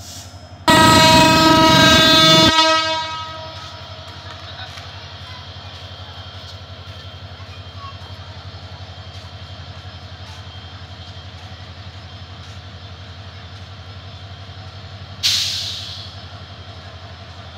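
Diesel locomotive's horn sounds one long blast of about two seconds, then the locomotive's engine runs with a steady low hum. Near the end there is a short, sudden burst of hiss that fades within a second.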